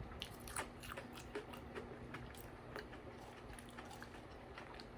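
Quiet chewing with irregular soft mouth clicks, over a faint steady hum.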